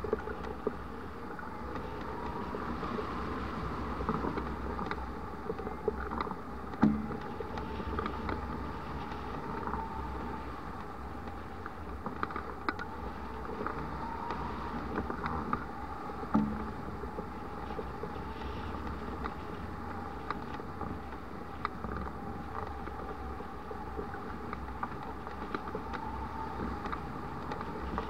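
Steady rush of airflow past a hang glider in flight, with a faint wavering whistle. Two brief low thumps, about seven seconds in and again about sixteen seconds in.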